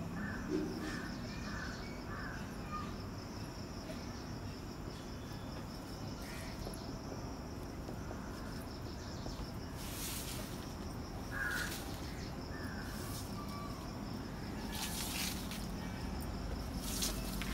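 Whiteboard marker writing, a few short scratchy strokes over a steady background hiss with a faint high steady tone.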